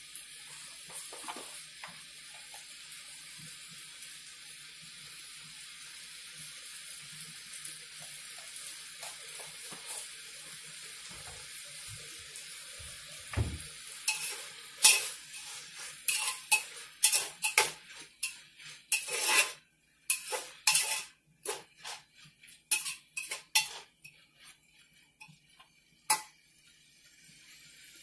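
Vegetables sizzling steadily in an aluminium pressure cooker. From about halfway, a metal spoon stirring them, with a string of sharp scrapes and clinks against the pot.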